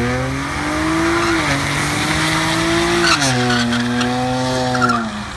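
BMW 335i's twin-turbo inline-six at full throttle, its pitch climbing through the gears, with two upshifts of the automatic gearbox: one about a second and a half in, another about three seconds in.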